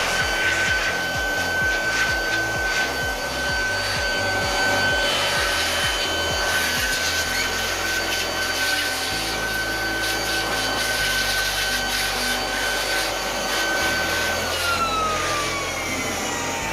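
Handheld electric air blower running with a steady high motor whine and rushing air, blowing dust out of the TV's insides. About fourteen seconds in it is switched off and the whine falls in pitch as the motor winds down.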